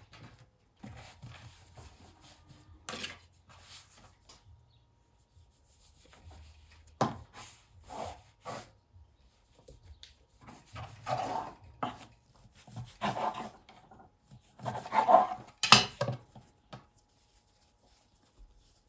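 Bread dough being kneaded, cut into portions with a knife and shaped on a floured wooden table: irregular rubbing, pressing and pushing of the dough, with a few sharp knocks of the blade against the wood, the loudest near the end.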